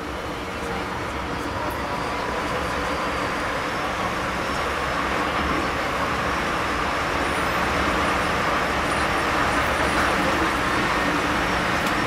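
Underground metro station: a train's steady rumble and hiss growing slowly louder.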